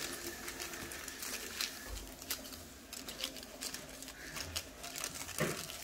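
Aluminium hair foils crinkling and plastic gloves rustling as foil packets are folded around sections of hair: faint, irregular crackles.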